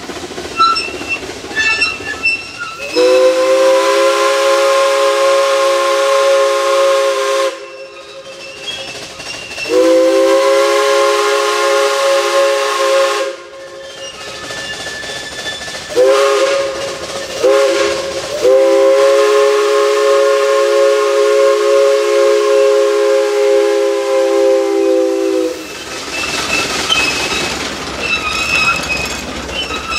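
Steam whistle on a replica Type A vertical-boiler Climax logging locomotive, sounding a chord of several notes. It blows two long blasts, then two short ones, then a long one, with the train's running noise and hiss between the blasts.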